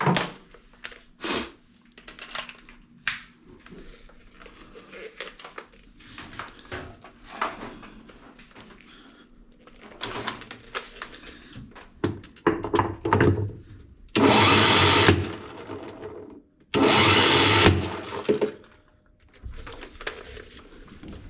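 A power wrench runs in two loud bursts of about two seconds each, working loose the 38 mm nut on a washing machine's drum hub. Before the bursts come scattered clicks and knocks of tools being fitted.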